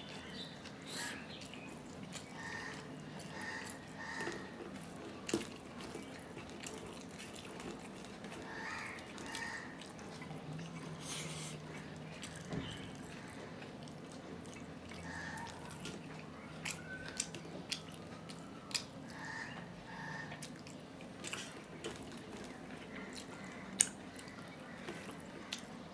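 Close-up chewing and wet mouth sounds of a man eating rice with mashed fish by hand, with soft squishing of the rice being mixed by his fingers on a steel plate and scattered small clicks, one sharper near the end.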